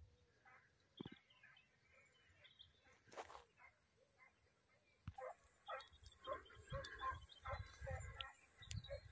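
Faint outdoor sounds: scattered short bird or animal calls. About five seconds in, a steady high hiss begins, along with a run of quick repeated calls and low rumbles.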